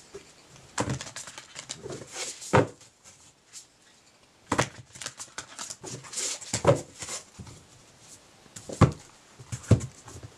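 Oracle cards being handled and a card drawn from the deck: a string of irregular rustles, clicks and soft knocks on the tabletop.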